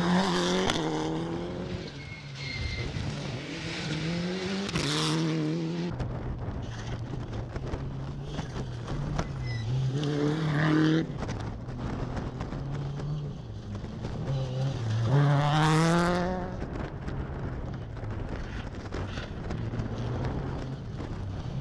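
Car engines running and accelerating, their pitch rising several times, with the loudest rise about fifteen seconds in; the sound of motor racing.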